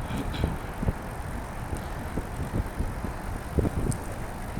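Trike rolling on wet pavement: a steady tyre-and-road rumble with wind on the microphone and irregular low bumps.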